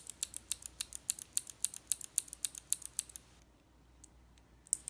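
Outemu Teal mechanical keyboard switch pressed over and over, giving sharp, high clicks about four to five a second; the clicking stops about three and a half seconds in, and a new run of clicks starts near the end.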